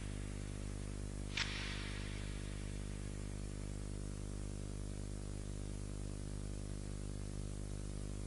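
Steady electrical mains hum with hiss on the soundtrack, and one short click about a second and a half in.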